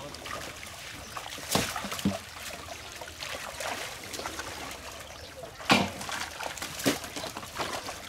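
Water trickling and splashing as a fishing net is hauled up out of shallow pond water. Four sharp splashes stand out, the loudest about six seconds in.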